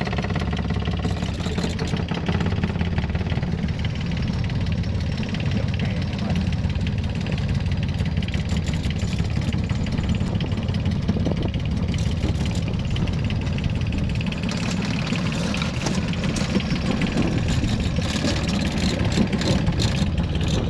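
Yanmar 3T diesel boat engine running steadily on a test run, an even low hum.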